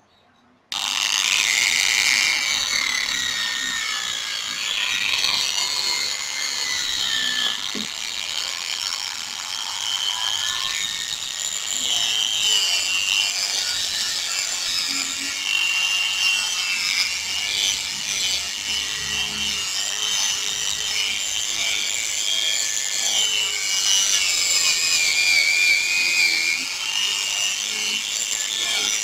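Small machine sander with a sandpaper disc wet-sanding the plastic lens of a yellowed motorcycle headlight, taking off the oxidised surface. It starts suddenly about a second in and then runs steadily, the pad rubbing on the wet lens.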